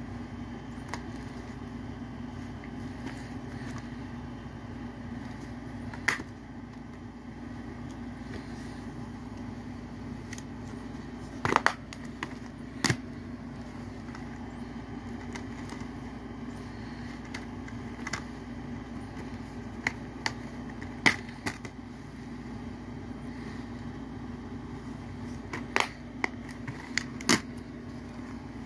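Plastic Blu-ray cases being handled, knocked together and set down, giving about a dozen scattered sharp clicks and clacks over a steady low hum.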